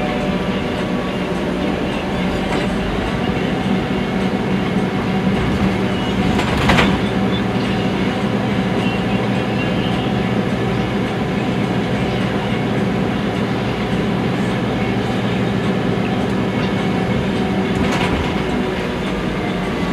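Cabin noise inside a Scania articulated bus under way: a steady engine drone with road rumble, and two brief knocks, one about a third of the way in and one near the end.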